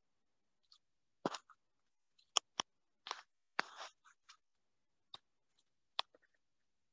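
Faint, irregular sharp clicks and knocks, about a dozen, with two short scuffing noises in the middle, separated by silence.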